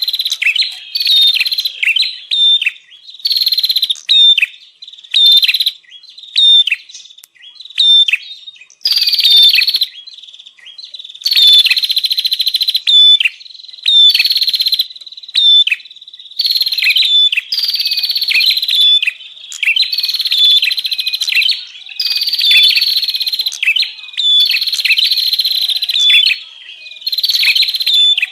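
Prenjak (prinia) calling noisily in rapid, repeated bursts of high chattering notes, each burst lasting up to a couple of seconds with short pauses between: a recorded lure call for drawing in wild prenjak.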